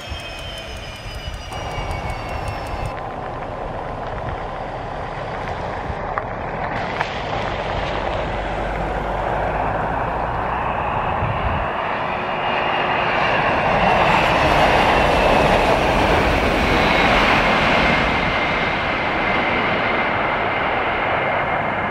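Business jet landing and rolling out: a broad rush of engine and air noise with a steady high turbine whine, growing louder after touchdown and loudest in the middle of the rollout. The first second or so carries the droning tones of a single-engine turboprop taxiing.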